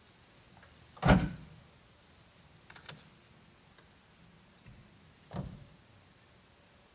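A sharp, loud thump about a second in, a few light clicks around three seconds, and a second, softer thump at about five and a half seconds.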